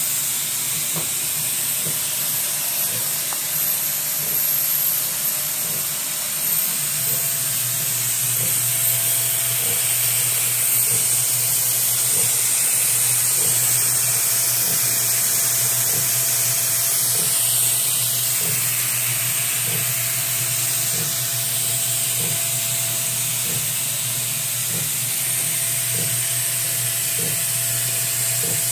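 Steady hiss and hum of a vacuum cleaner sucking air through hoses to drive a homemade wooden vacuum engine, with faint regular clicks from the engine's moving parts. The hum grows stronger about seven seconds in, when the clicking sets in.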